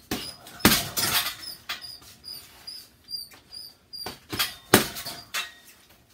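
Boxing gloves hitting a hanging leather punching bag: two hits near the start and a quick flurry of three or four about four seconds in. Under them a faint high squeak repeats about three times a second.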